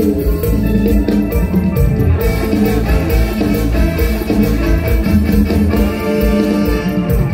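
Live mor lam band music played loud through the stage sound system: an instrumental passage with bass and a steady beat.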